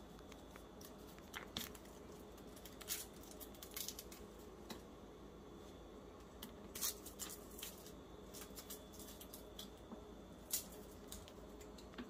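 Faint, irregular crisp snaps and cuts of fresh vegetables being prepared by hand, a dozen or so separate clicks over a faint steady hum.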